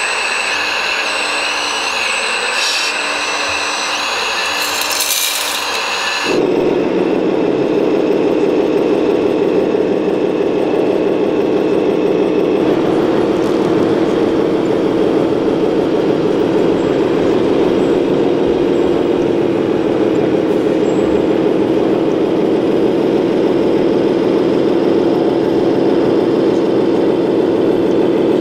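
High whine of the small electric motors driving 1/14-scale RC construction machines, with a few clicks. About six seconds in, it changes abruptly to a steady low engine drone from an RC model truck.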